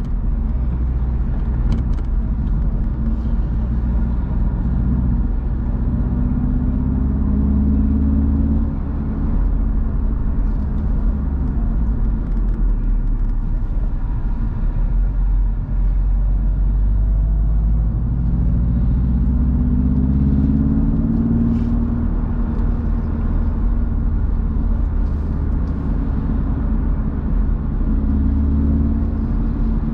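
BMW roadster engine running under way over road noise. The engine note rises as the car accelerates about six seconds in and again from about eighteen to twenty-two seconds in, with a brief drop in level near nine seconds.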